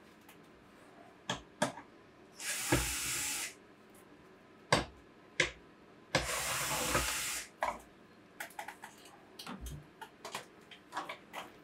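Clicks and knocks of metal parts and fittings being handled while a pinball machine's backbox is taken apart. Two bursts of hiss, each a second or so long, come about two and a half seconds in and again around the middle.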